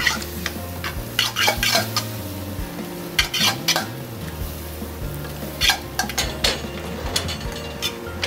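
A metal fork scraping and clinking in a metal sauté pan and against a porcelain pasta bowl as spaghetti is twirled and plated, in irregular bursts of clicks and scrapes. A steady low hum runs underneath.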